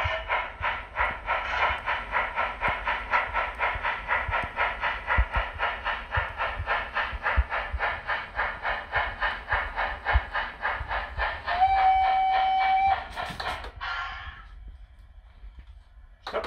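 LGB Saxon IV K garden-railway steam locomotive's sound decoder playing its running sounds through the loco's loudspeaker: steady steam chuffing at about four beats a second, with one whistle blast about 12 s in and a short hiss of steam just after. These running sounds are working again, at raised volume, now that a wrong decoder setting has been put right.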